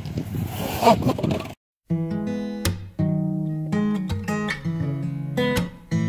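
Acoustic guitar music, strummed, starting about two seconds in after a brief cut to silence. Before it comes a short stretch of noisy outdoor sound with a loud moment about a second in.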